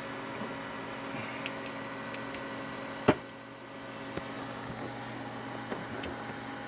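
Steady hum of a running desktop computer's fan, with scattered small clicks and knocks of cables and objects being handled behind it, and one sharp knock about three seconds in.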